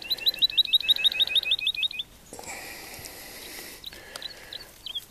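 Woodlark song: a fast run of repeated whistled notes, about ten a second, for about two seconds. A spell of rustling noise follows, then a second run of notes begins near the end.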